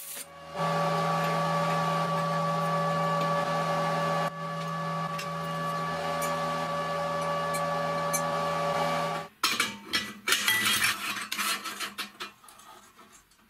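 Electric arc welding on steel: a steady buzzing hum with hiss for about nine seconds, briefly broken near the start. It then cuts off suddenly and is followed by a few seconds of steel parts clinking and knocking together.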